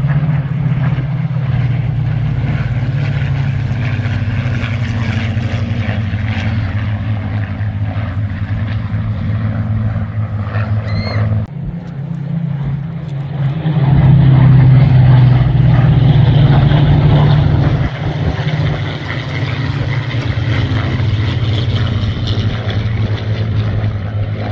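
Piston engines of a formation of WWII fighters, which sound like Spitfires, flying over in a steady drone that swells loudest about halfway through.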